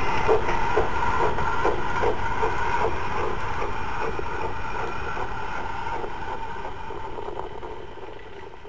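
Model train running on the layout: a motor whine with a steady clickety-click of wheels over rail joints, about three clicks a second, fading away as the train moves off.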